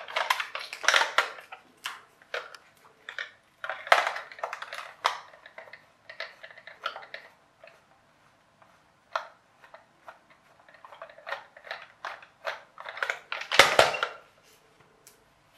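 Plastic RC toy car being handled and unscrewed with a small screwdriver: irregular runs of clicks, scrapes and plastic creaks, with short pauses between them. Near the end there is a louder clatter.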